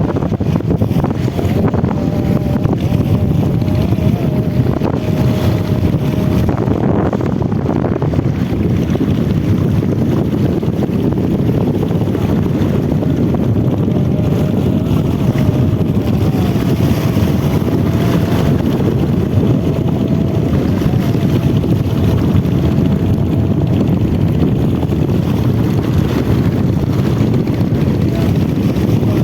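Small fishing boat's engine running steadily at sea, with wind buffeting the microphone and a faint wavering whine above the drone.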